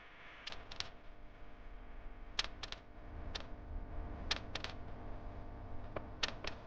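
Scattered sharp clicks and light taps, a dozen or so at irregular spacing, over a faint low hum.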